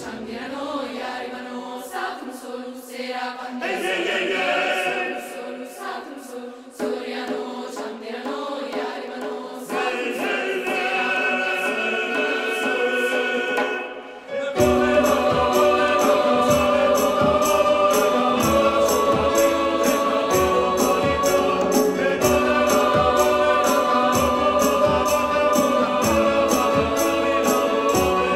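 Children's choir singing, sparse and quieter at first with nothing beneath the voices. About halfway through, a full accompaniment with bass and a steady percussion beat comes in suddenly, and the music grows louder.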